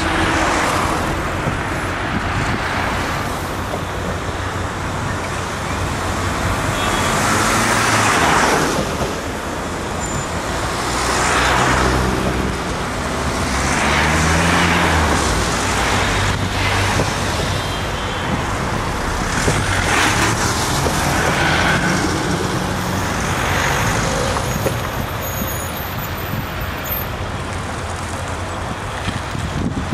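Road traffic on a city street: cars passing one after another, each swelling and fading away, with one engine rising in pitch as it pulls away about halfway through.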